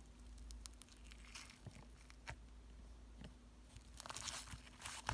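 Hands mixing and kneading clay, a faint crackling and crinkling that grows louder and busier about four seconds in.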